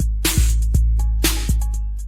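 Dance music with a steady beat: a sharp snare hit about once a second over kick drums and a deep, sustained bass line, with short clipped notes between the hits.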